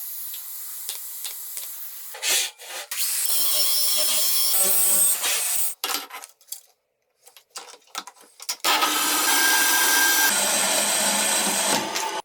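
A tool cutting or abrading metal in two long passes, with scattered clicks and knocks between them.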